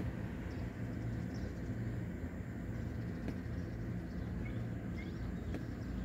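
Steady low hum of outdoor background noise, with a couple of faint high chirps about two-thirds of the way through.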